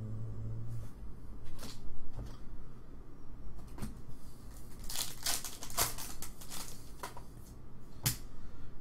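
Foil trading-card pack wrappers crinkling and tearing as packs are handled and opened, in a run of short irregular rustles that is busiest a little past the middle.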